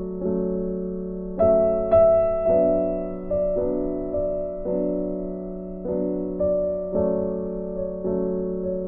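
Soft instrumental background music on a keyboard, with notes or chords struck about once a second and left to die away.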